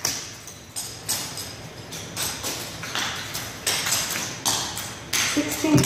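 Tap shoes stepping across a wooden stage: the metal taps click with each step, unevenly, about two a second.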